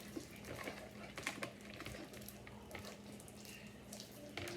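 Sticky homemade glue slime being kneaded and stretched by hand: faint, irregular squishing with many small sticky clicks.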